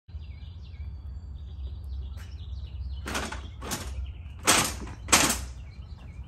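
Small birds chirping over a steady low rumble, with four short noisy strokes a little over halfway through, the last two the loudest.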